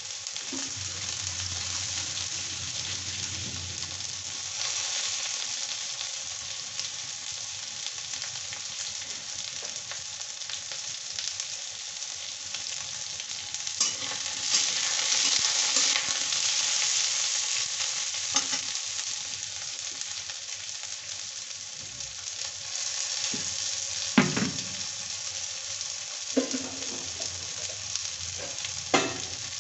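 Pointed gourd (parwal) pieces sizzling as they fry in oil in a metal kadhai, with a steel spatula scraping and knocking against the pan as they are stirred. The sizzle swells about halfway through, and several sharp scrapes come near the end.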